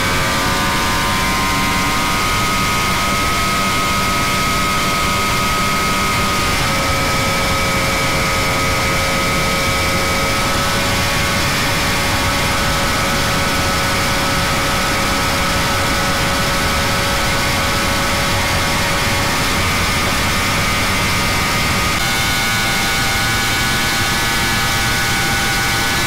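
Catamaran powerboat's engines running flat out as the boat accelerates to over 100 mph, a loud steady engine note whose pitch steps up slightly a few times, over a constant rush of wind and water.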